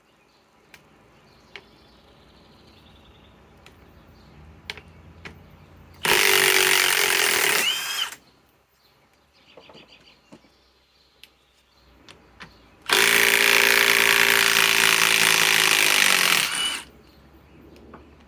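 Milwaukee M18 Fuel cordless impact wrench hammering as it backs lag screws out of wood, in two runs: about two seconds starting some six seconds in, then nearly four seconds starting about thirteen seconds in, the second winding down as it stops.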